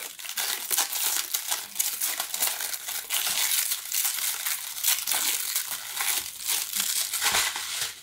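Clear plastic wrapping crinkling and crackling as it is peeled by hand off a small clay teapot, a continuous crackle of many small crinkles.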